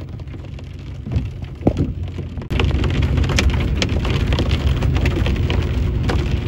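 Rain pattering on a vehicle's roof and windshield, heard from inside the cab over a steady low engine rumble. About two and a half seconds in it grows louder, the drops ticking more densely.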